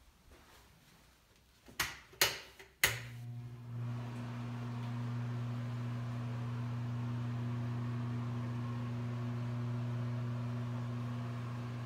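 Three wall-switch clicks in quick succession, then a bathroom exhaust fan starting up and running with a steady low hum and a rush of air.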